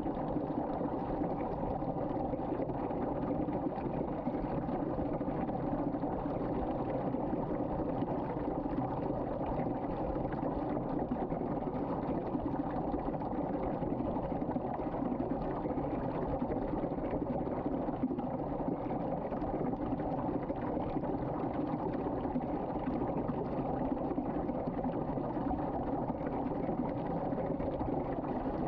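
Water swirling down a sink drain in a whirlpool vortex, a steady, unbroken rush of water.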